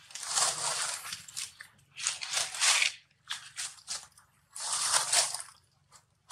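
Dry leaves rustling and crunching in three bursts of about a second each, with a few short crackles between them.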